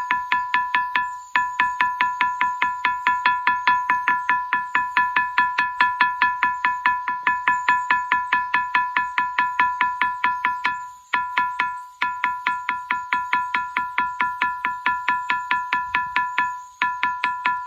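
Ringing rocks struck over and over, about four strikes a second, each giving a clear bell-like ring at one pitch. The striking pauses briefly about a second in, around eleven seconds and near the end.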